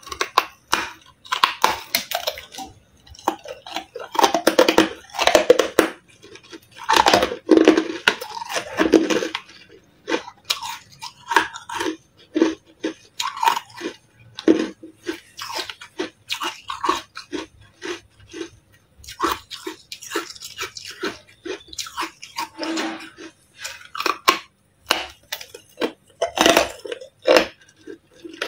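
Biting and chewing blocks of carbonated ice, close-up crunching and crackling. The crunches come thick and fast for the first ten seconds or so, then as sparser single crunches.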